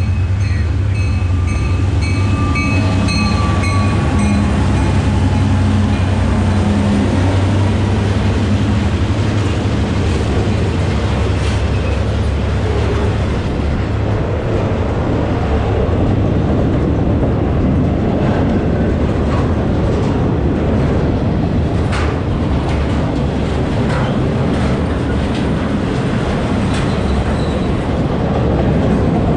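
A CSX diesel freight locomotive passes close by with its engine running, and loaded flatcars follow, rolling past with a steady wheel-on-rail rumble. A few sharp clicks from the wheels come through in the second half.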